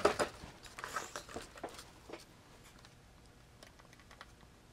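Handling noise from a benchtop test instrument being moved and set down on a wooden bench: a run of small clicks, knocks and rustles for about the first two seconds, then only faint room tone.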